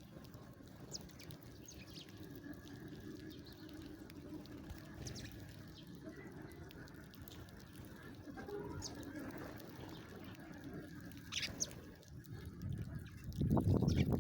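Sparrows chirping: scattered short, high chirps over a steady low background noise, with a louder low noise coming in near the end.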